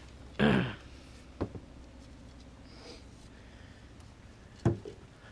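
A short grunt or throat-clearing sound about half a second in, then a sharp click, and near the end a knock from the landing net being handled against the boat.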